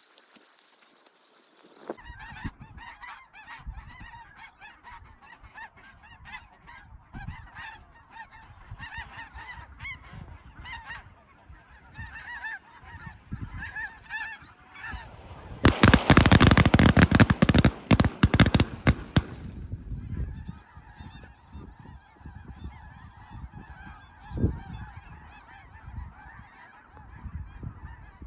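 A flock of snow geese honking and calling, many short overlapping calls. About halfway through, a loud rushing noise covers the calls for roughly four seconds.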